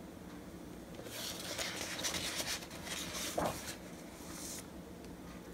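Page of a hardcover picture book being turned and smoothed flat by hand: soft paper rustling for a few seconds starting about a second in, with a light tap partway through.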